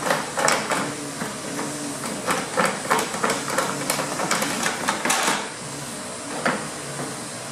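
Irregular clicks, taps and light knocks of hard plastic and metal intake parts being handled and worked loose by hand in a car's engine bay.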